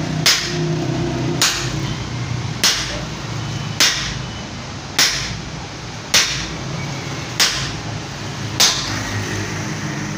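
Sledgehammer blows on an upright steel shaft, driving a tubewell bush fitting into place: eight sharp strikes, evenly spaced about every second and a quarter, each with a short ring.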